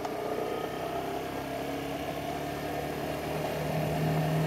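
Cruiser motorcycle engine running steadily while riding along a street, its note growing louder in the last second or so.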